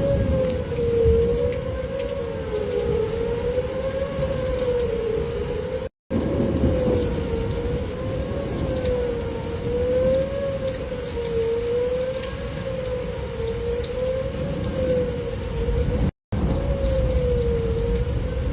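Whelen outdoor tornado warning sirens sounding the Attack signal: a steady, slowly rising-and-falling wavering tone, over the hiss of rain. The audio drops out briefly twice.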